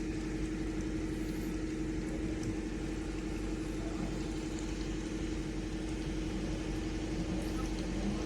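A vehicle engine idling, a steady unchanging hum.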